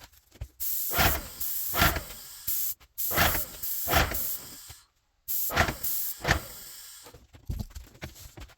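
Graco Finish Pro GX19 paint sprayer with a 210 FFLP tip hissing as the gun sprays paint onto cabinet doors, in three bursts of about two seconds, each cut off sharply as the trigger is released, then a weaker, broken spell near the end.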